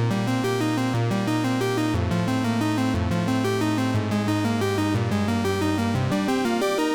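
Background music: an upbeat electronic track with a busy pattern of short pitched notes over a moving bass line.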